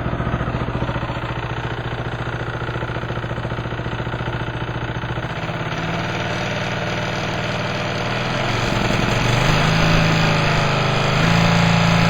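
Craftsman lawn tractor's Briggs & Stratton engine running at low throttle, then sped up in two steps, about eight and eleven seconds in. The engine has a knock that the owners suspect is internal, perhaps the balancer.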